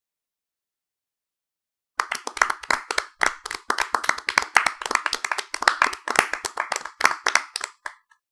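Hand clapping: after about two seconds of silence, quick, dense claps start and run in short bursts with brief breaks, then die away just before the end.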